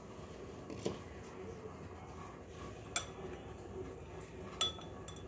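Three light knocks of a plastic spoon against a bowl, spread out over a few seconds, over faint room noise.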